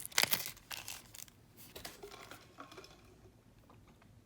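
Small plastic bead bags crinkling as they are handled, loudest and densest in the first second or so, then quieter rustling and a few small clicks.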